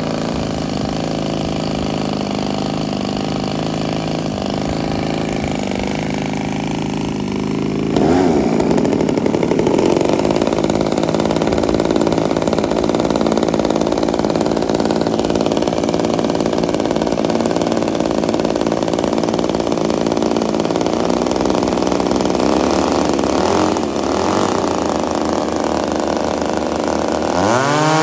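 Small two-stroke gasoline model-aircraft engine (Evolution gas engine on an RC Cessna 337) running steadily. It gets louder about eight seconds in, and its pitch drops sharply right at the end.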